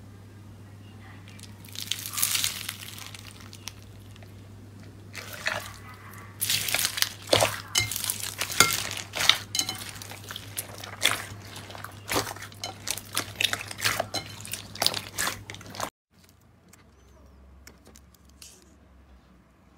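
Hands squeezing and pressing foam-bead slime (floam): wet crackling and quick popping clicks, sparse at first and dense from about six seconds in, over a low steady hum. After a cut near the end, only faint soft slime sounds remain.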